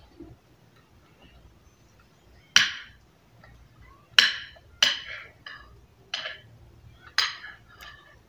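Metal fork striking and scraping a ceramic plate, about six sharp clinks spread over a few seconds, each with a short ring.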